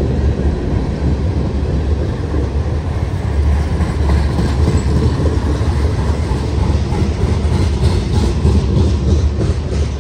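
Freight train cars rolling past with a steady low rumble. Wheels click over the rail joints, more distinctly in the second half.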